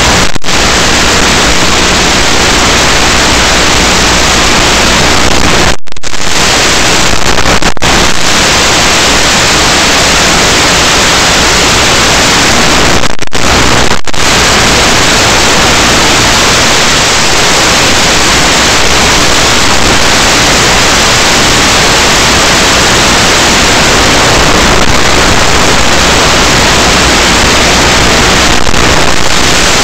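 Loud steady static hiss from an analog FPV video receiver's audio channel. It cuts out for a split second about five times.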